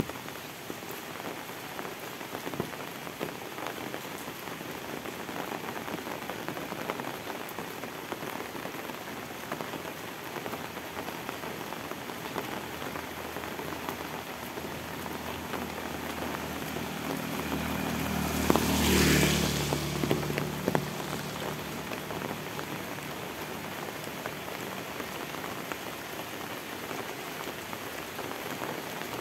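Steady rain falling on a wet road and leaves. About two-thirds of the way through, a motorbike comes up and passes, its engine and the hiss of its tyres on the wet road growing to the loudest point and then fading away.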